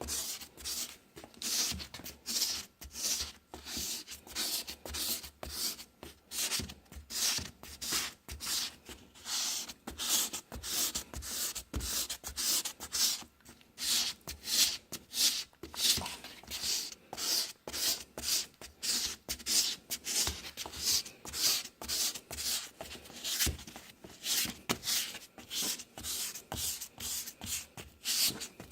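Hand sanding pad rubbed back and forth straight across a cloudy plastic headlight lens, at about two strokes a second, in a steady scraping rhythm.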